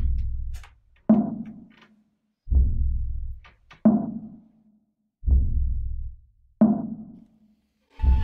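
Slow percussion in a film score: deep booming drum hits alternate with sharper knocking hits, about one every second and a half, each dying away before the next.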